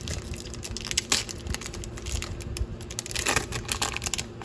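Foil wrapper of a trading-card pack being torn open and crinkled by hand, an irregular run of crackles and small clicks, a sharper one about a second in.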